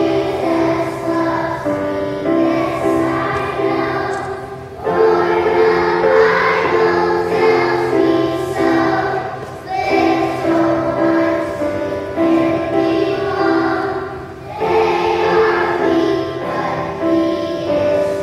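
A choir of young children singing a song together, with each new phrase starting louder about every five seconds.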